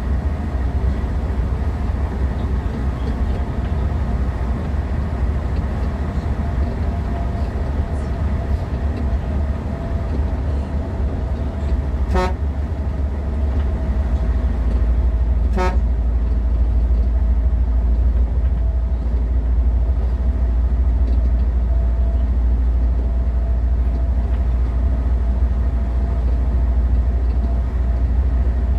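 Vehicle horn honked twice in short toots about three and a half seconds apart, over the steady low rumble of the moving vehicle.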